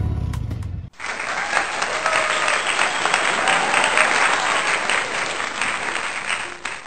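Guitar music ends about a second in, and a crowd then claps in a dense applause that cuts off abruptly near the end.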